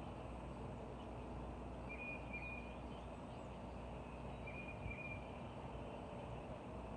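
A high whistled call, a held note broken by a quick dip, heard twice about two and a half seconds apart over a steady low outdoor rumble.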